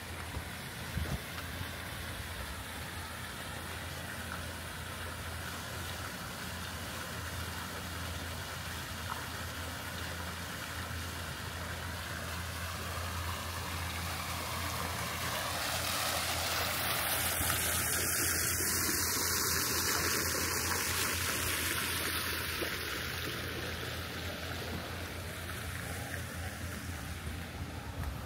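Stone courtyard fountain splashing, its hiss growing louder for several seconds past the middle and then easing off, over a steady low hum.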